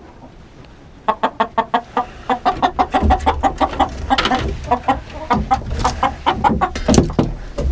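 Chickens clucking: a fast run of short, repeated clucks that begins about a second in and keeps going, growing busier. A low rumble sits underneath from about three seconds in.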